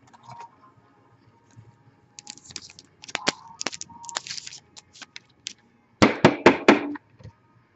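Trading card packaging being handled by hand: scattered crinkles and clicks, then a quick run of about five loud, sharp snaps about six seconds in.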